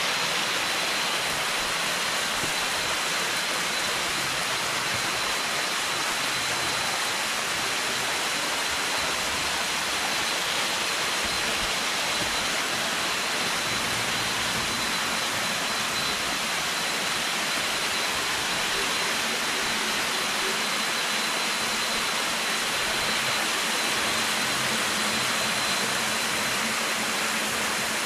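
Waterfall: shallow water cascading and splashing down rock slabs close by, a steady, unbroken rush of water.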